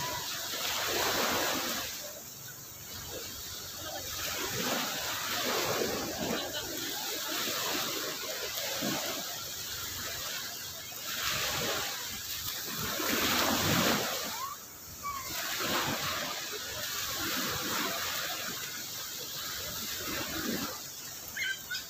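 Small waves breaking and washing up a sandy beach, the rush of water swelling and fading in repeated surges every few seconds.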